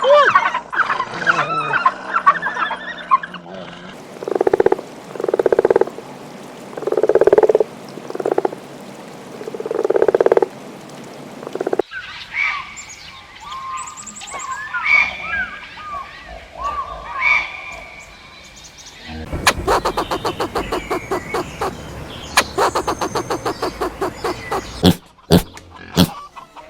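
A series of different animal calls, changing abruptly several times: a run of low repeated calls, then higher gliding calls, then a fast string of pulses.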